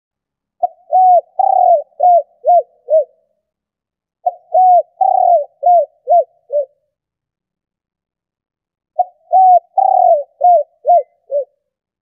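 Spotted dove cooing: three phrases of about six short, arched coos each, with a pause of a second or two between phrases.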